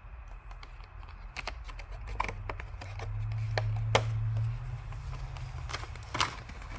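Scattered clicks and light rustles of a small product box and its contents being handled and unpacked, with a low hum that swells in the middle and fades.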